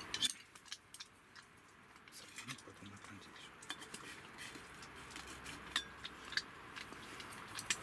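Wooden chopsticks tapping and scraping on a small black skillet while pulling apart a seared slab of meat: scattered light clicks and knocks, a few sharper taps near the start and again about six seconds in.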